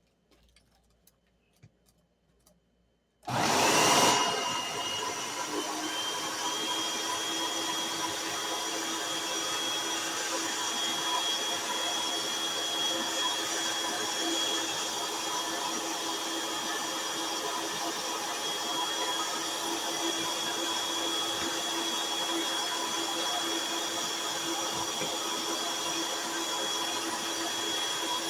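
An electric food shredder's motor switches on about three seconds in and runs steadily with a high whine, shredding cabbage through its round shredding blade.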